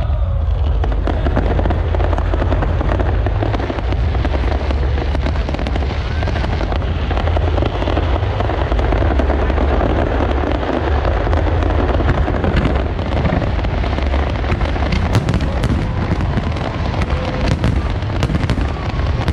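Fireworks launching and bursting: a loud, continuous rumble of reports. Sharp cracks come thicker over the last few seconds.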